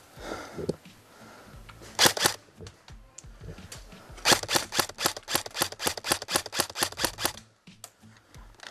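Airsoft electric rifle firing: two or three shots about two seconds in, then a rapid string of about fifteen shots, roughly five a second, stopping about seven seconds in.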